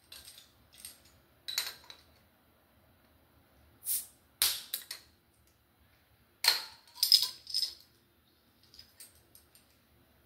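Metal bottle opener clicking and clinking against a glass bottle's cap as it is fitted and the cap is pried off, in short separate clicks with the loudest cluster a little past the middle.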